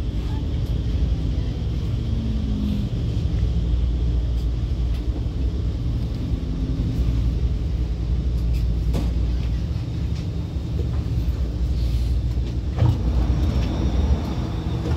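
Alstom Movia R151 metro train cabin noise: a steady low rumble as the train slows along the platform and comes to a stop, with a sharp clunk near the end as the doors open.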